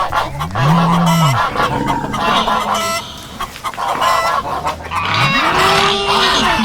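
Farmyard geese honking and cackling over and over. Two long, low calls that rise and then fall in pitch come from a larger farm animal, one near the start and a higher one about five seconds in.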